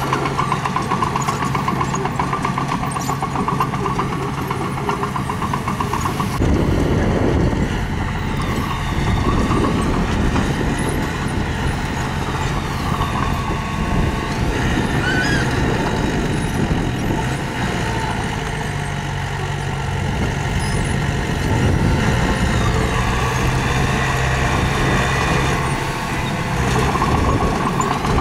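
Mini bulldozer's diesel engine running steadily, then growing louder and rougher about six seconds in as it works under load, and rising and falling after that.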